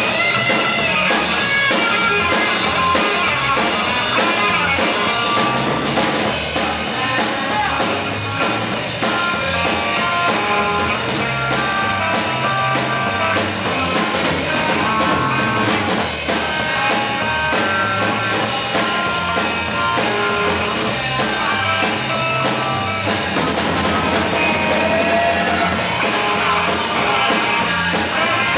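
Live rock band playing: electric guitars and a drum kit, amplified in a hall.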